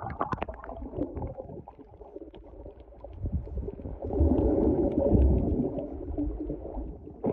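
Muffled underwater sound of seawater moving around a submerged camera microphone: a low rumbling and gurgling, with a few splashy clicks at the start and a louder stretch from about four to six seconds in.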